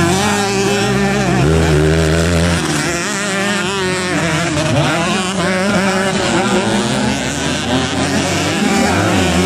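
Several trail and dirt bike engines racing on a motocross track, overlapping as they rev up and down with pitch rising and falling as the riders work the throttle.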